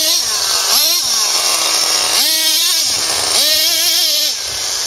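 Radio-controlled off-road car's small engine revving up and down in a high buzz, surging about three times and easing off near the end.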